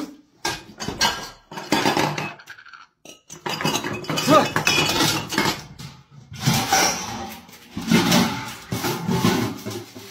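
Metal pots, pans and lids clanking and clinking again and again in irregular clatters as a cat clambers over them on a kitchen stove and counter.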